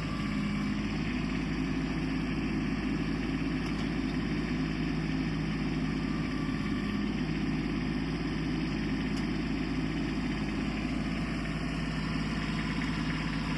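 Kubota compact tractor's diesel engine running steadily as it works the backhoe.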